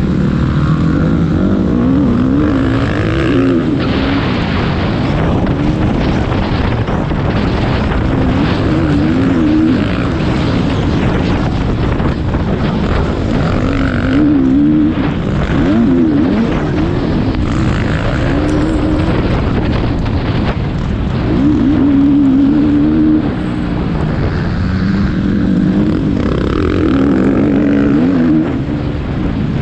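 Motocross bike engine under race throttle, its pitch rising and falling again and again as the rider accelerates, shifts and backs off, with short dips in loudness about three-quarters of the way through and near the end.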